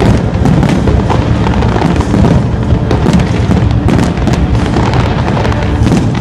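Fireworks display: a dense barrage of shells bursting and crackling in quick succession, with music playing underneath.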